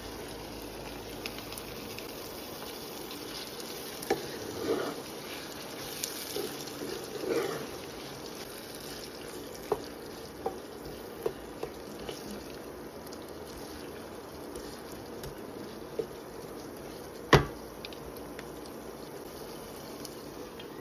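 Chopped onions, garlic and tomatoes sizzling and bubbling steadily in oil in a non-stick pan, as a wooden spoon stirs them, with a few clicks of the spoon against the pan. A single sharp knock about three-quarters of the way through is the loudest sound.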